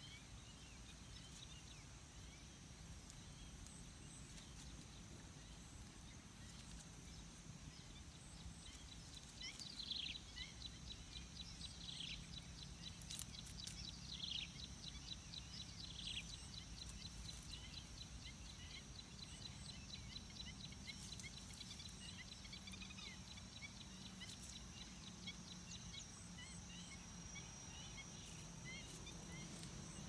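Faint outdoor nature ambience: a steady low hum and a high steady whine, with four falling whistled bird calls between about ten and sixteen seconds in and a fast ticking trill behind them.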